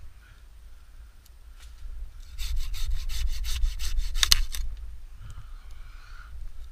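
Curved pruning handsaw cutting through a pine branch: about two seconds of quick back-and-forth strokes, ending in a sharp crack as the branch gives way.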